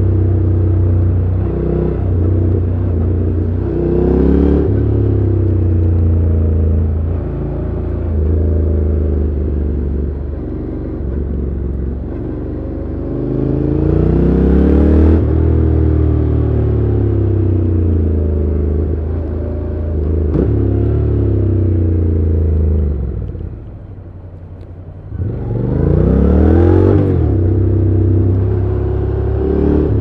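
Honda NC750X's 745 cc parallel-twin engine through its stock exhaust, heard from the rider's seat while riding, its pitch rising and falling as the throttle is opened and eased off. About three-quarters of the way through it drops quiet for about a second and a half, then picks up again with a quick rise in pitch.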